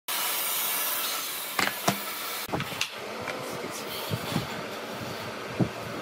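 A steady hiss with two sharp clicks, cutting off abruptly about two and a half seconds in; then scattered light knocks of wooden boards being handled on a workbench.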